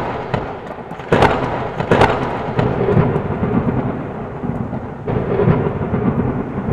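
Thunderstorm: sharp cracks of thunder near the start, about a second in and about two seconds in, then continuous rumbling with rain.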